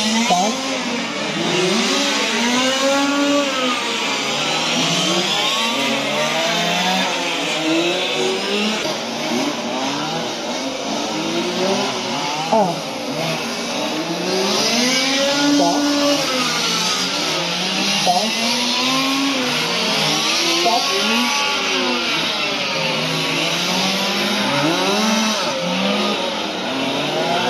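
Several 1/5-scale petrol RC race cars' small two-stroke engines running around the track, each revving up and falling back in overlapping waves of rising and falling pitch, over a steady hiss.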